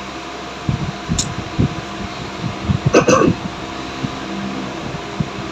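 Knocks, clicks and a rattling scrape from hands and tools working on a car's intake parts, the loudest cluster about three seconds in, over a steady background hum.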